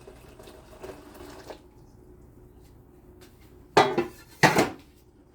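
Metal cookware being handled, then set down with two loud clatters about two-thirds of a second apart, a little past the middle.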